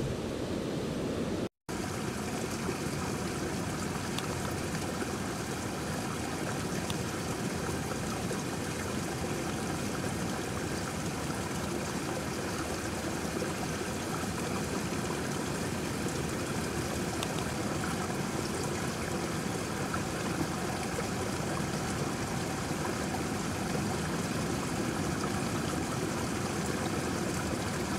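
Steady rushing noise of flowing water, like a nearby stream. It drops out for a split second about a second and a half in.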